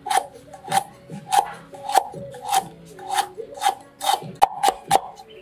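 Cleaver slicing fresh ginger root on a wooden chopping block: a steady series of crunching cuts, each ending in a knock of the blade on the wood, about one and a half a second and quickening near the end.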